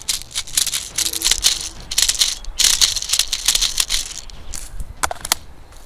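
Close, irregular rustling and crackling in bursts: a gloved hand and clothing moving right by the microphone, with dry leaves crunching underneath.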